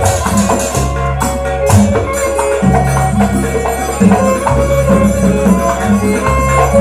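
Traditional Banyuwangi dance music: a melody over percussion, with a deep bass note that comes back about every two seconds.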